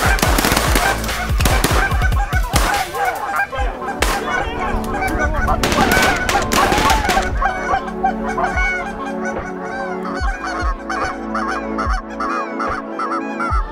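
A large flock of geese honking overhead in a dense, continuous chorus. Shotgun shots crack out repeatedly over it during the first seven seconds or so, most thickly in the first three seconds.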